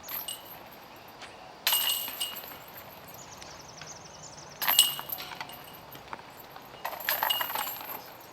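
Metal chains of a disc golf basket jangling as discs strike them, three times about two and a half seconds apart.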